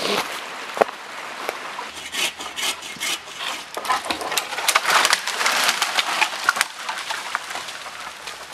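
A small sapling being cut through at its base: irregular knocks and cracking, splintering wood, then a longer stretch of crackling and rustling about halfway through as the tree breaks off and falls through branches and leaves.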